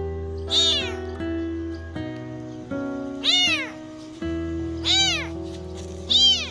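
A young kitten meowing four times in loud, high cries that each rise and fall in pitch: the crying of a hungry abandoned kitten. Background music with held notes plays underneath.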